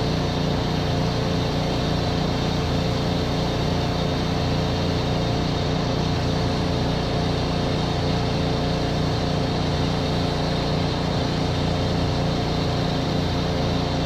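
Pressure washer's gas engine running steadily at a constant pitch.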